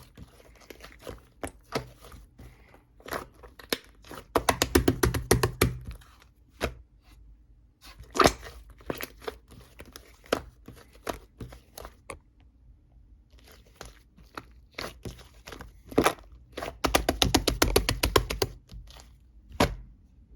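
Close-up crunching and crackling: scattered sharp clicks, with two longer runs of rapid crackling about four and seventeen seconds in.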